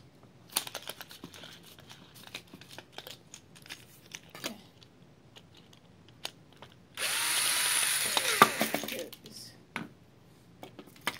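Black & Decker cordless drill running for about two seconds, about seven seconds in, with a steady high whine, while a sanding disc is being taken off it. Before that, scattered light clicks and knocks of the disc and a screwdriver being handled.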